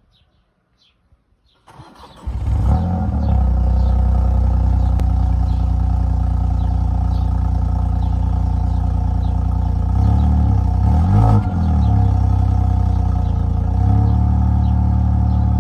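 Mini Cooper exhaust at the tailpipe as the engine is started: a short crank about two seconds in, then it catches and settles into a steady idle. A couple of brief revs come about ten to eleven seconds in, and the idle resumes after them.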